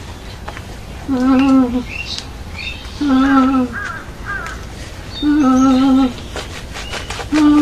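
A loud animal call with a wavering pitch, repeated four times about every two seconds, each call lasting under a second; small birds chirp faintly in between.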